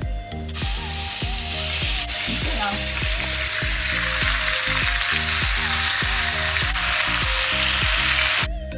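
Seasoned chicken wings, onions and peppers sizzling loudly as they drop into hot oil in a frying pan and are stirred with a wooden spoon. The sizzle starts suddenly about half a second in and cuts off near the end.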